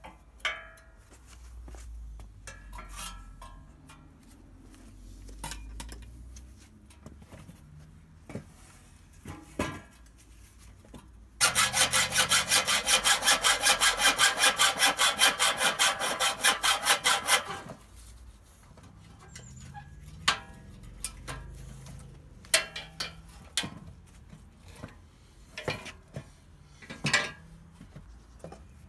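Hacksaw cutting through the steel frame tube of a Triumph T300 motorcycle frame. Its fast, even strokes are loudest for about six seconds in the middle. Before and after come quieter scraping and scattered metal knocks and clinks.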